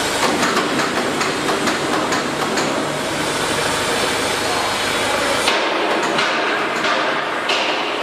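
Repeated hammer blows on metal, about two or three a second, over a steady low hum. The hum cuts off suddenly about five and a half seconds in, and a few sharper, ringing blows follow.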